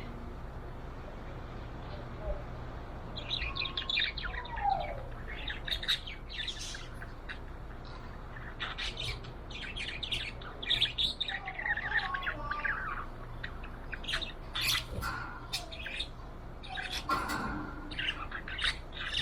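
Budgerigar (budgie) chirping and chattering in quick runs of short high calls, starting a few seconds in, with some sharper squawks toward the end.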